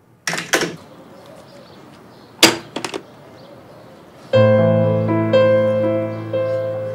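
Telephone handset set down in its cradle with a couple of quick clatters, then another short sharp knock about two and a half seconds in. Piano music with held chords comes in about four seconds in and is the loudest sound, slowly fading.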